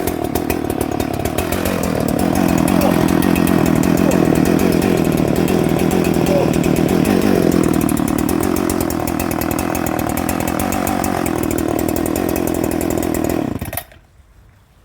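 Husqvarna 394XP two-stroke chainsaw running at high revs through small brush and twigs, its pitch dipping briefly about two seconds in. The sound cuts off abruptly near the end.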